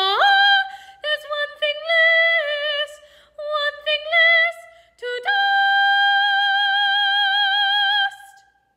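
A woman singing unaccompanied in classical style, with vibrato. She sweeps up at the start, sings a few short phrases, and ends on a long high note held for about three seconds before it stops.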